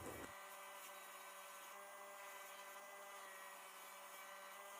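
Near silence: faint steady electrical hum of room tone.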